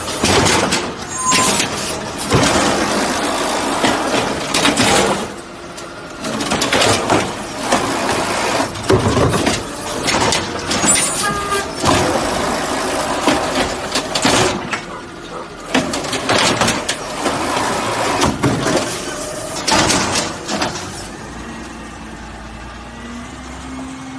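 Garbage truck at work: repeated loud bangs and short bursts of noise over the running truck, easing to a quieter steady running sound near the end.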